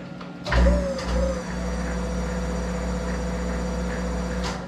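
Monarch 10EE toolmaker lathe starting up with a thump and a short wavering whine, then running steadily with a low hum and a high whine. It stops abruptly near the end.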